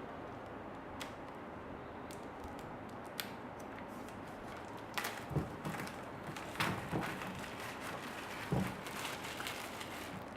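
Packaging being cut open and handled by hand: scattered clicks, then a busier run of scrapes and crinkles from about halfway through.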